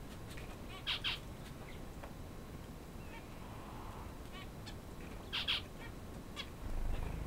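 Chinese painted quail calling: two loud, short double calls, about a second in and again about five and a half seconds in, with softer short peeps between. A low rumble comes near the end.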